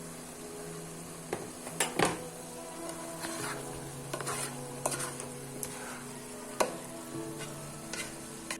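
Irregular short clinks and scrapes, about a dozen, the loudest about two seconds in, over soft background music with long held notes.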